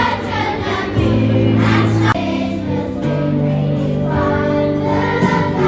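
Music with a choir singing long held chords that change about every second.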